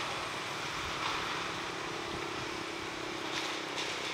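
Steady hum of a distant engine under outdoor background noise.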